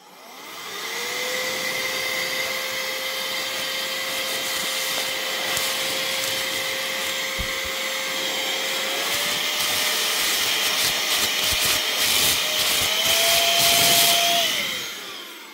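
Cordless electric air duster's high-speed fan motor spinning up to a steady whine over a rush of air, then stepping up in pitch twice as it is switched to higher speed settings. It spins down near the end.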